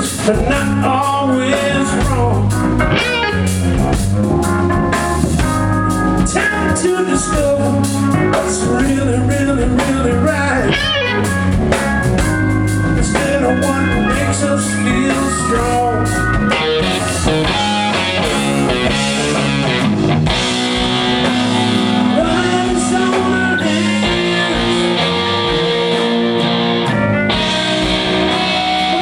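Rock band playing live: an electric guitar lead with bending, wavering notes over bass and drums in an instrumental stretch of the song.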